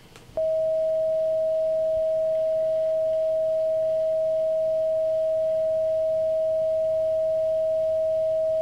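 A pure, steady sine tone from an online tone generator, starting about half a second in and holding one unchanging mid-range pitch. It is a visible-light colour's frequency shifted down twelve orders of magnitude into the audible range, here the tone for blue.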